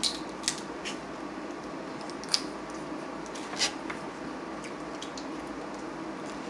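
Blue crab being picked apart and eaten by hand: a handful of sharp shell cracks and snaps, the sharpest about two and a half seconds in, with wet mouth sounds from eating, over a steady background hum.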